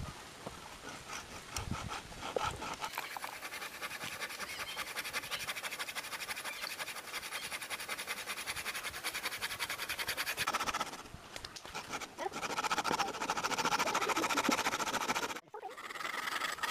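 Hand saw rasping back and forth into the trunk of a betel nut (areca palm) tree in quick, steady strokes. The sawing stops briefly near the end, then starts again.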